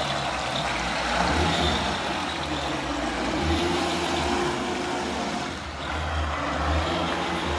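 Small remote-controlled net-towing boat driven hard through the water, its motor and propeller churning up a wake with a steady rushing noise and a faint steady hum.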